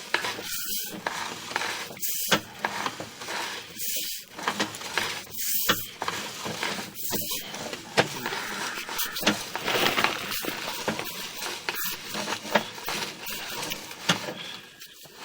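Sewer inspection camera's push cable being fed down the line, with steady scraping hiss and irregular knocks and clicks as the cable and reel are handled.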